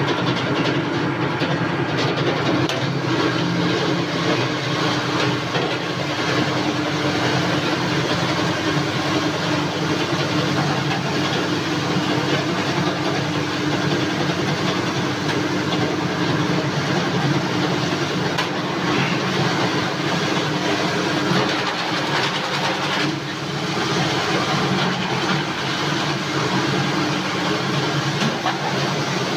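Electric motor of a hopper-fed grater machine for detergent powder running steadily, with a constant hum.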